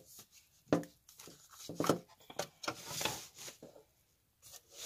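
Handling noise from plastic parts and bottles of a hydroponics kit being moved on a wooden shelf: a sharp knock about a second in, another near two seconds, then scraping and rustling about three seconds in.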